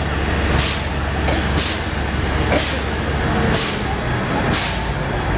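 Fire engine running steadily while pumping water through hoses to the aerial ladder, with a sharp hiss that repeats about once a second.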